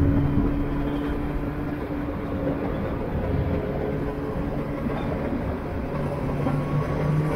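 A vehicle engine running with road and wind noise. Its note falls and grows quieter early on, runs lower through the middle, and starts to pick up near the end.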